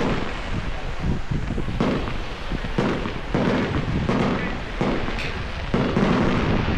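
Fireworks going off in quick succession, a bang roughly every second, each with a low rumbling boom.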